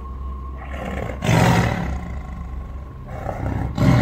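Big cat roaring twice: a long, rough roar about a second in that trails away, and a shorter one near the end.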